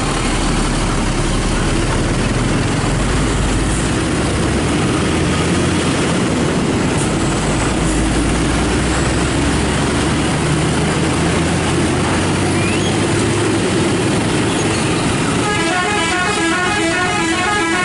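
Intercity bus engines running loud, then near the end a telolet multi-tone horn plays a quick tune of rapidly alternating notes.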